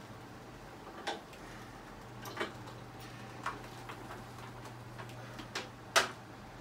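Plastic ventilator breathing-circuit parts clicking and knocking as they are handled and fitted together: a handful of separate clicks at uneven spacing, the loudest near the end, over a faint steady low hum.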